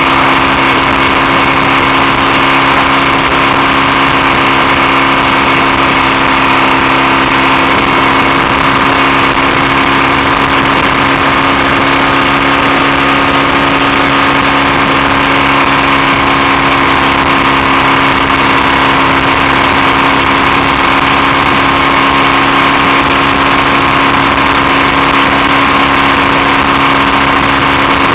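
BSA A65 650cc parallel-twin engine running at a steady, unchanging speed while the motorcycle is ridden on the road.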